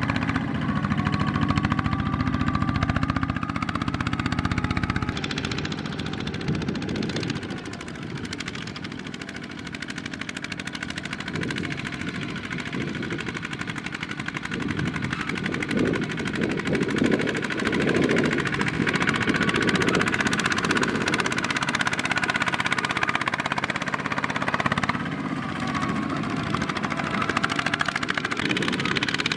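Single-cylinder diesel engine of a Kubota two-wheel tractor chugging with a rapid, steady beat as it hauls a loaded trailer through a field. The sound changes about five seconds in, softer for several seconds, then louder again.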